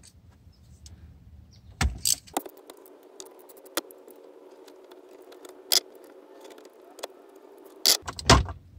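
Ratchet wrench clicking and metal clinking as the two 10 mm bolts holding a Mustang's stock shift handle are undone: many light quick ticks with a few sharper, louder clicks.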